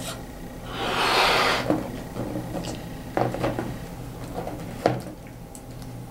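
A long breath blown into a rubber balloon to inflate it, then a few short clicks and rubbing sounds of the rubber as the balloon is knotted.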